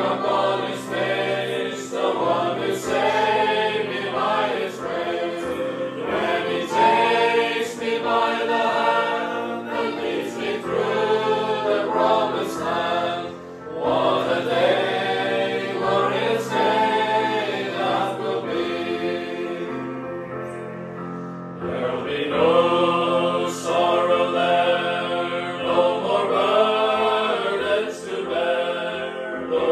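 Mixed choir of men's and women's voices singing a gospel hymn to electronic keyboard accompaniment, with short breaks between lines about 13 and 21 seconds in.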